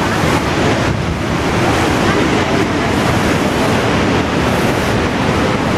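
Loud, steady rushing of the Saraswati river's mountain torrent as it pours through the rocky gorge under the Bhim Pul rock bridge.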